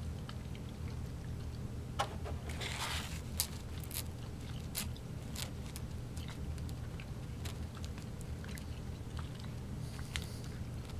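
Two people biting into and chewing tough Ring Pop gummy candy. Scattered small mouth clicks and smacks are thickest a few seconds in, over a steady low hum.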